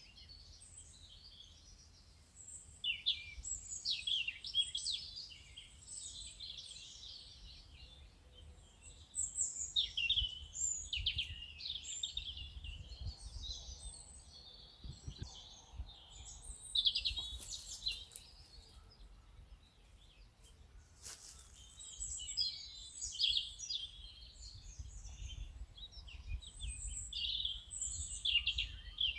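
Songbirds chirping and singing in bouts of quick, high chirps, over a faint, steady low rumble.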